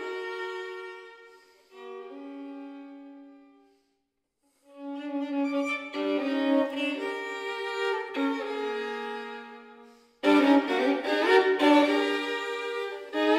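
Solo violin playing sustained double stops in a contemporary classical piece. The notes die away to a short silence about four seconds in, return softly and swell, then break into a sudden loud passage about ten seconds in.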